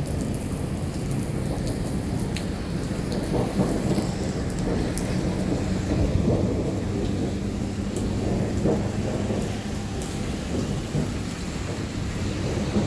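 Heavy rain pouring steadily onto pavement, with a deep, even rumble underneath. Scattered sharp ticks come from drops hitting close by.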